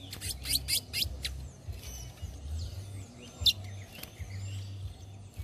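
Caged towa-towas (chestnut-bellied seed finches) singing: a quick run of sharp chirps and whistles in the first second or so, then scattered notes, over a steady low rumble.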